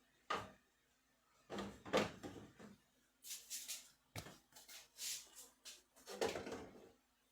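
Refrigerator contents being put back on the shelves: a series of knocks and clatter of containers and fridge drawers, with some rustling between them.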